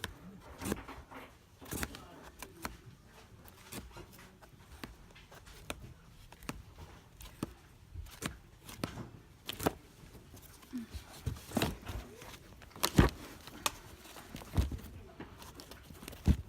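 Irregular clicks, knocks and light rustling of small items being handled and sorted, with a couple of louder knocks in the second half.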